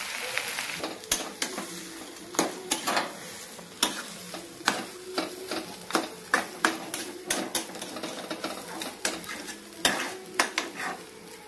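A metal spoon clinking and scraping against a metal kadai in irregular strokes, about two a second, as spiced potato filling is stirred and mashed, over a light frying sizzle.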